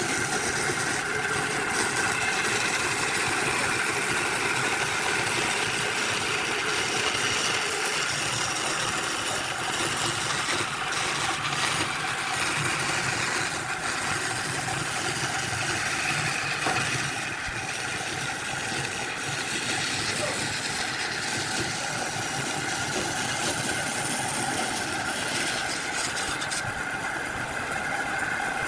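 A motor-driven machine running steadily, with a continuous mechanical hum and a few tones that drift slightly in pitch.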